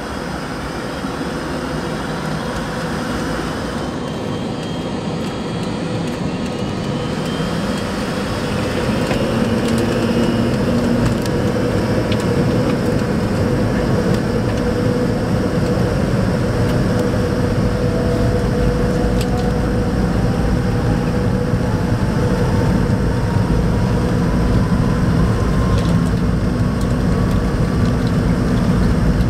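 McDonnell Douglas MD-88's rear-mounted Pratt & Whitney JT8D turbofan engines heard from inside the cabin during the takeoff roll. They grow louder over the first eight or nine seconds as they come up to takeoff power, then run loud and steady, with a whine rising in pitch through the second half as the plane speeds up.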